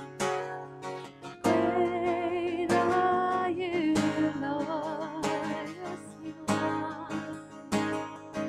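Live worship music: an acoustic guitar strummed steadily with a woman's voice singing over it, the sung notes wavering with vibrato.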